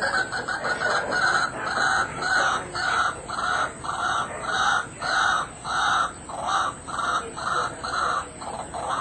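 White-breasted waterhen calling: a long run of evenly repeated 'kuak' notes, about two a second.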